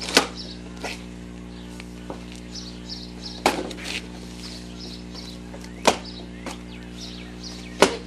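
Cardboard box flaps being torn and pulled open, with four sharp rips or snaps: one right at the start, one about three and a half seconds in, one about six seconds in, and the loudest near the end.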